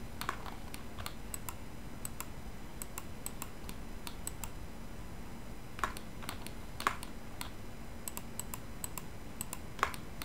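Irregular clicking of computer keyboard keys and mouse buttons as someone works at a computer, with a few louder clicks about six, seven and ten seconds in, over a faint steady low hum.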